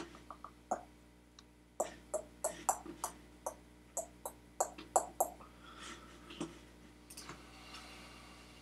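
Computer keyboard keys clicking: a few scattered keystrokes, then a quick irregular run of about a dozen that stops about halfway through.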